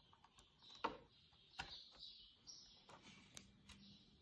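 Near silence with faint bird chirps and a few soft clicks from a small screwdriver and plastic propeller being handled on a DJI mini drone; the strongest click comes about a second in.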